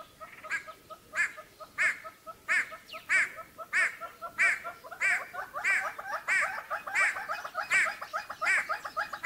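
Great hornbill calling: a loud call, rising then falling, repeated about every two-thirds of a second, with softer quick notes running between the calls.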